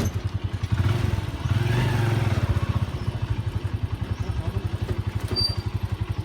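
A small engine running with a fast, even putter, a little louder for a moment between one and two and a half seconds in.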